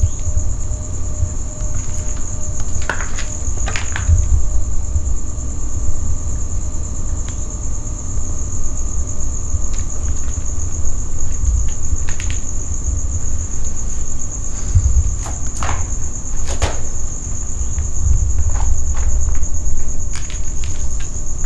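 Crickets chirping in a steady, unbroken, high-pitched night chorus. Under it is a low rumble on the microphone, and a few short clicks come through, around the third and fourth seconds and again past the middle.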